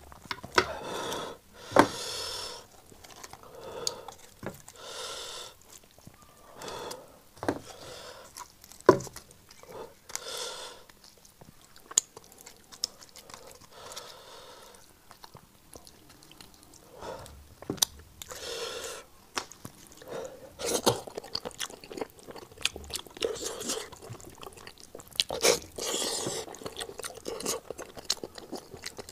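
Close-miked chewing and wet lip-smacking of spiced sheep's-head meat, with irregular sharp clicks and squelches as the meat is pulled apart by hand.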